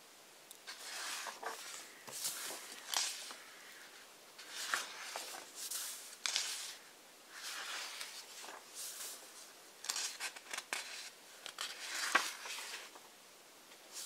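Pages of a large hardcover book being turned by hand one after another: about a dozen short papery swishes and flicks with brief pauses between.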